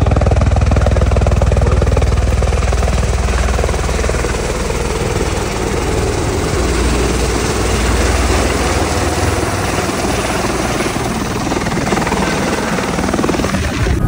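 Helicopter in flight heard from inside the cabin: steady, loud rotor and engine noise with a deep rumble.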